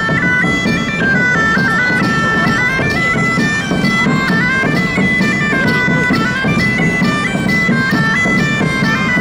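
Street musicians playing a quick, lively melody on a wind instrument, its held notes stepping up and down over a steady low accompaniment.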